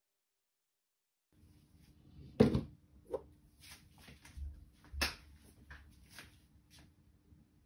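Knocks and clicks of objects being handled in a small room, starting abruptly about a second and a half in, with two louder thumps, one near the start and one about halfway through.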